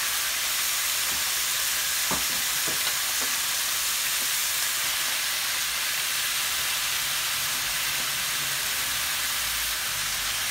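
Chicken strips sizzling steadily in hot olive oil in a nonstick frying pan, with a few light ticks about two seconds in as the pieces are spread around the pan.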